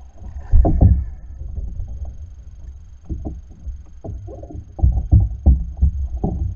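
Hobie Outback kayak's plastic hull knocking and thumping irregularly as the angler shifts his weight and works the rod and gaff, with water lapping against the hull. A louder thump comes about half a second in, and there is a run of heavier thumps near the end.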